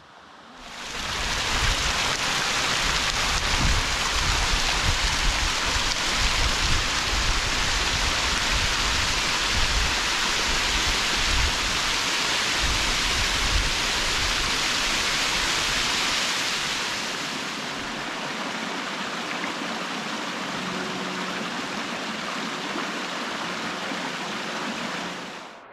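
Falling water of a waterfall splashing onto rocks: a steady, loud rush with an uneven low rumble. Near two-thirds through it drops to a quieter, steady rush of a small creek running over rocks.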